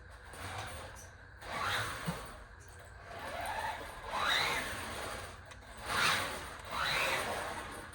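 MJX Hyper Go 16210 RC car's electric motor revving up in several short bursts of throttle, its paddle tires spinning and sliding on the garage floor.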